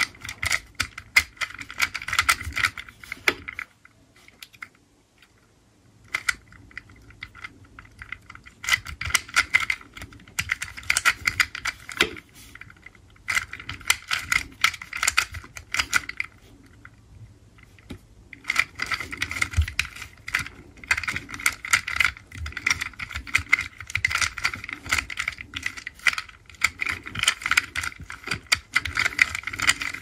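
Plastic 2x2 Rubik's cube being turned by hand: rapid clicking and clacking of its layers in bursts, with brief pauses between runs of turns.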